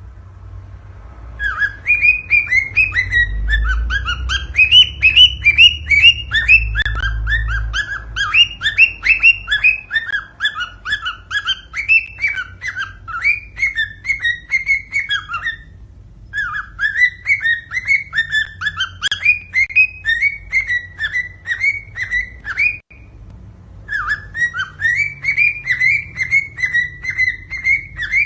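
Cockatiel song: rapid runs of repeated, sliding whistled chirps in three long phrases with short pauses between them, the warbling that male cockatiels sing when courting.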